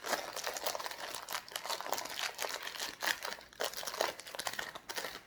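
Crisp packet crinkling and rustling as it is handled and opened, a dense run of irregular crackles.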